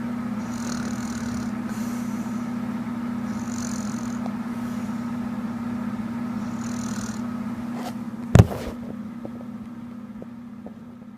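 A steady low drone, like an engine or fan, with soft hissing breaths about every three seconds; a single sharp knock about eight seconds in, after which the sound fades away.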